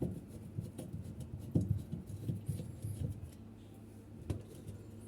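Scattered light clicks and knocks, irregular and a few per second, as washing-machine parts are handled and opened.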